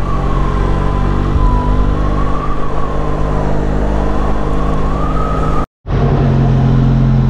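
Motorcycle engine running steadily while riding along the road, with a thin high tone that slowly wavers up and down over it. The sound drops out for an instant about five and a half seconds in, and the wavering tone is gone afterwards.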